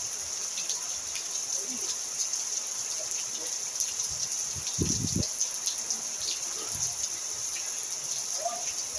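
Steady rain falling, a constant hiss with many scattered drop ticks. A brief low thud about five seconds in.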